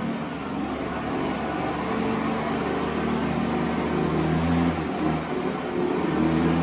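Lawn mower engine running steadily, loud, swelling a little around the middle.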